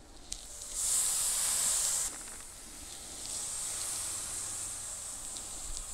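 Marinated skirt steak sizzling as it is laid on the hot grate of a Big Green Egg kamado grill: a loud hiss starting about a second in and dropping off after about two seconds, then a steadier, softer sizzle as the rest of the meat goes down.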